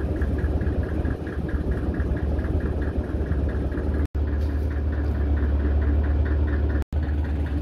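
Fishing boat's engine running steadily while the boat pushes a prawn net: a low drone with a fast, regular ticking.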